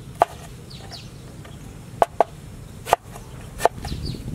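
A kitchen knife chopping through a green cactus stem and striking a wooden cutting board: about five sharp knocks at uneven intervals, two in quick succession about two seconds in.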